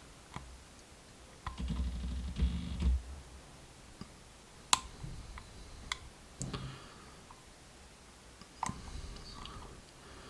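Dimple lock pick working the pins inside a Mul-T-Lock Integrator cylinder under heavy tension: a handful of sharp, widely spaced clicks, with some low knocking and handling noise about two seconds in. The pick is probing the binding sixth pin to set it.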